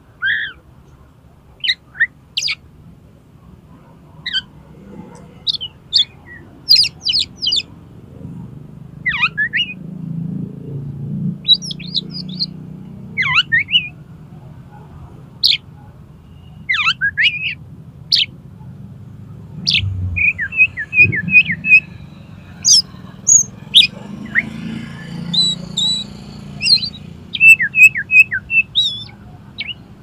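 Oriental magpie-robin (kacer) singing a loud, varied song of short sharp whistles and falling sweeps. About two-thirds of the way through, and again near the end, it breaks into quick runs of repeated notes.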